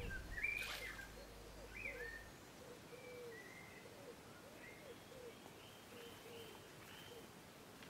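Faint birdsong: short high whistled notes from one or more birds and a lower series of short repeated calls, over a soft outdoor background hiss.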